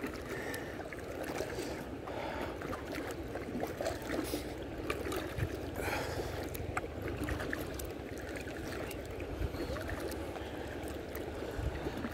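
Inflatable kayak being paddled with a double-bladed paddle: the blades dip and pull through calm river water, with small splashes and drips.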